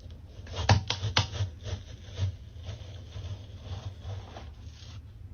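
Thick glittery paint being scooped and scraped with a tool: a rubbing, scraping noise with a few sharp clicks about a second in and another just after two seconds.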